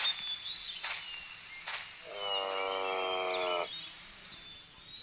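Birds chirping against a background of natural outdoor sound, with three short bursts of noise in the first two seconds. About two seconds in comes one steady animal call lasting about a second and a half.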